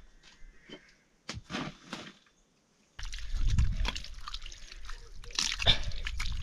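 A few faint clicks, then from about three seconds in louder water sloshing and splashing in a vessel, with many small knocks.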